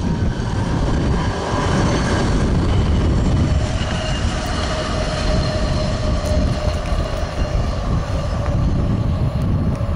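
Hi-rail pickup truck running along the railroad track, its steel rail wheels giving a steady ringing hum over a constant low rumble.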